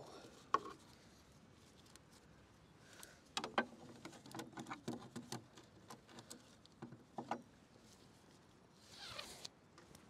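Green nylon ratchet strap being handled around plastic buckets in a wooden pallet crate: scattered clicks and knocks from the buckle and wood, with the webbing rubbing. Near the end, a short swish of strap being pulled through.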